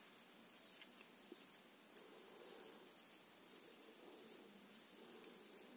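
Faint, irregular clicking and scraping of metal knitting needles as stitches are purled in wool, with one sharper click about two seconds in.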